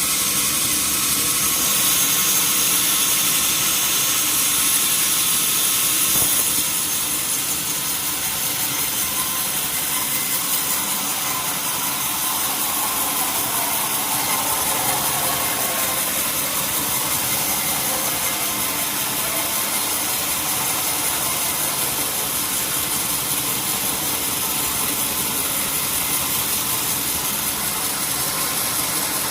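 Sawmill wheel saw and its engine running steadily: a dense, continuous machine noise, a little louder for the first six seconds or so.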